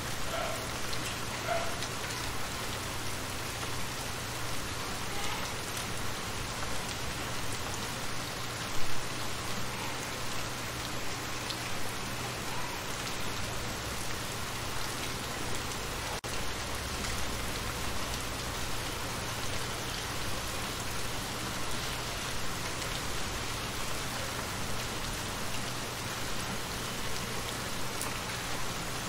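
Steady rain falling into shallow water, with many small drops splashing on the surface. One brief, louder sound stands out about nine seconds in.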